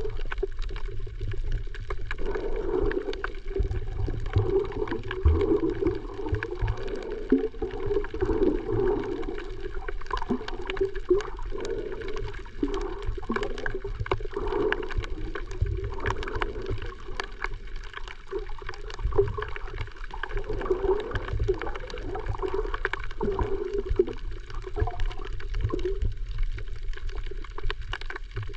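Seawater sloshing and gurgling around a camera during snorkeling, muffled, with many small clicks and knocks throughout.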